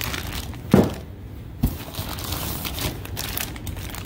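Clear plastic bags of new suspension parts crinkling as they are handled, with two dull knocks about a second apart near the start.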